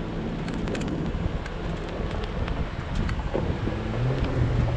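A Jeep's engine running steadily at low speed, growing stronger about four seconds in, with wind buffeting the microphone and scattered sharp ticks.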